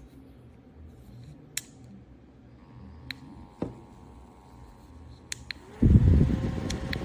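Mecmic mini evaporative fan running with a faint steady whine, under a few sharp plastic clicks. Near the end a loud low rumble starts suddenly and then eases off.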